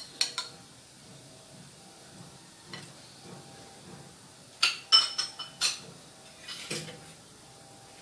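Metal spoon clinking against a glass bowl of shrimp: a couple of sharp ringing clinks at the start, a lone one a little before three seconds in, and a quick cluster of clinks around five seconds in.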